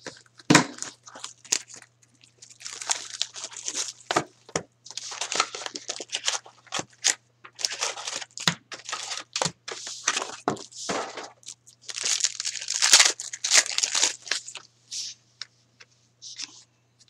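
Hockey trading card packs being opened by hand: wrappers tearing and crinkling, and card stock rustling, clicking and sliding as the cards are pulled out and shuffled, in irregular bursts of rustles and sharp clicks.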